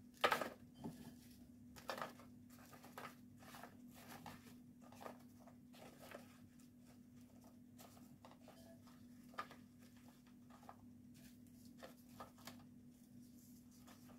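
Cubes of dry, stale baguette set down and shuffled in a metal baking pan: soft, irregular taps and scrapes, the loudest in the first two seconds.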